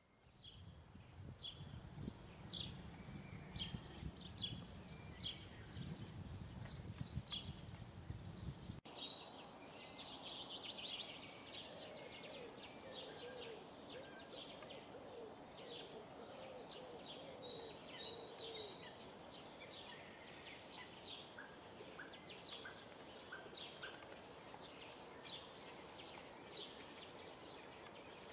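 Several birds singing and calling outdoors in short high chirps. A low rumble sits under the birdsong for the first nine seconds and stops abruptly. Later comes a run of lower repeated notes.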